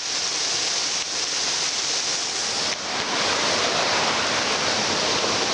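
Steady rush of a stream's water flowing fast, a dense even hiss with two brief dips.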